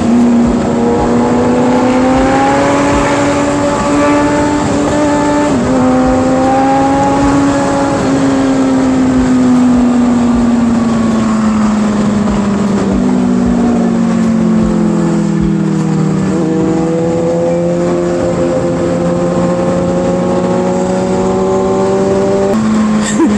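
Sport bike's engine running under way at road speed, over a steady rush of wind. The engine note rises, drops at a gear change about four seconds in, sinks slowly as the bike eases off, then holds steady near the end.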